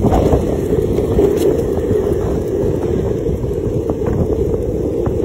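Wind buffeting the phone's microphone while the person filming moves along behind the dog: a steady low rumble.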